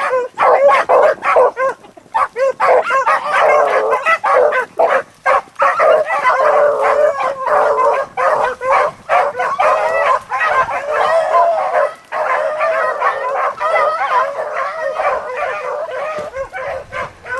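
A pack of beagles baying and yipping continuously, several hounds overlapping, on the line of a running rabbit.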